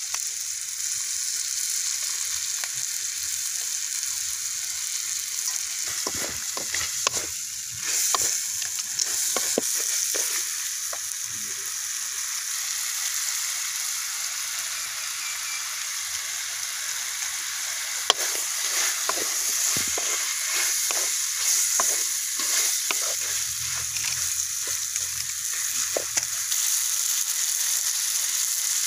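Duck pieces in spice paste sizzling steadily in a metal pan. Bouts of scraping and clacking from a wooden spatula stirring the meat come about six seconds in and again from about eighteen seconds.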